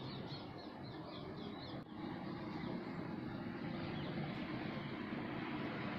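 Outdoor background: a steady low hum of distant traffic. For the first two seconds or so a bird gives a quick series of short chirps, about four or five a second.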